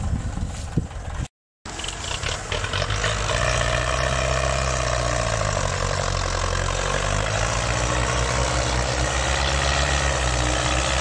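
Diesel engines of a Fiat 640 and a Belarus MTZ-50 tractor running hard under heavy load, pulling a sugarcane-loaded trolley stuck in mud. A steady low engine drone that begins after a brief cut to silence just over a second in, and grows louder about three seconds in.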